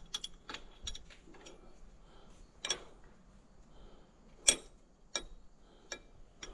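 Scattered light metallic clicks and taps of hand tools being handled on a tractor, irregular and a second or so apart, the sharpest about halfway through.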